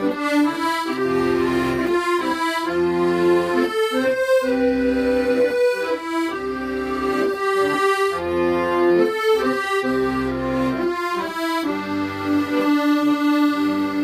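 Accordion playing a slow ballad melody in long, held notes over low bass notes and chords.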